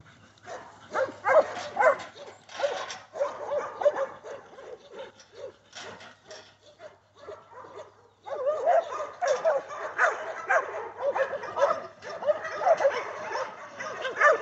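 Herding dogs barking and yipping in quick runs of short calls as they work cattle into a pen. The barking eases off in the middle and picks up again, thicker, about eight seconds in.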